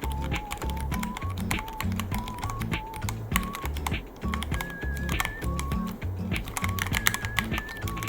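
Fast, continuous typing on a Ducky One 3 mechanical keyboard, keys clacking in quick irregular strokes, over background music with a steady bass pattern and a light melody.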